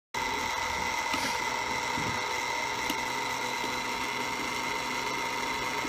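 Small electric draught fan on top of a live-steam model boiler's chimney, running with a steady whine to draw the fire while steam is raised.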